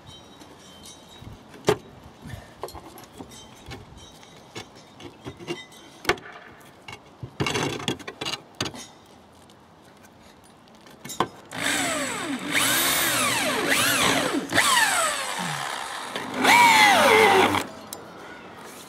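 Concrete roof tiles knocking and scraping as they are lifted, then an electric drill driving screws to fix a solar-panel mounting T-bracket to the roof timber. The drill's whine rises and falls in pitch, with its loudest run near the end.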